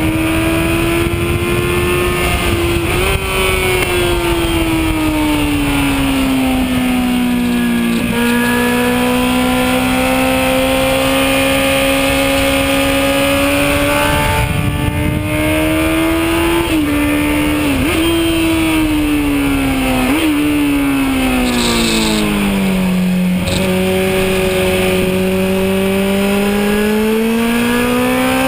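Kawasaki Z1000's inline-four engine at high speed on track, its pitch sliding down and climbing again, broken by several quick gear changes. Heavy wind rush runs over it.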